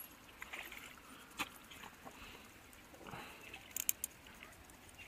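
A hooked smallmouth bass splashing at the water's surface as it is drawn in to be grabbed by hand. A sharp click comes about a second and a half in, and a quick run of ticks near the four-second mark.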